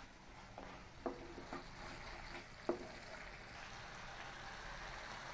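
Thick masala paste of ground cashew, poppy seed and onion-ginger-garlic frying gently in a frying pan with a low sizzle while it is stirred with a wooden spatula. A few light knocks sound in the first three seconds.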